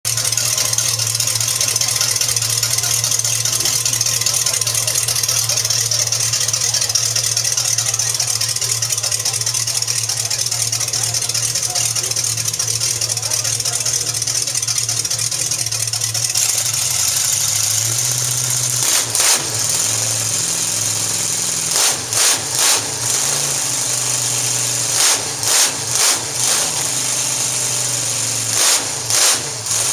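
Chrysler Hemi Firepower V8 idling steadily. In the last ten seconds or so it is revved in several short throttle blips.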